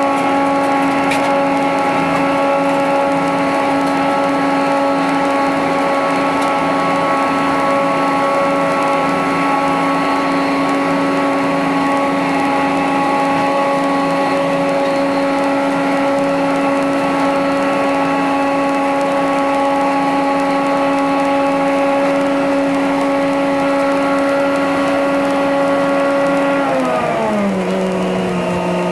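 Tractor-driven Teagle Tomahawk 8500 bale processor running steadily at one pitch as it blows chopped straw bedding, a steady machine whine over a rushing noise. Near the end the whine falls in pitch as the machine winds down.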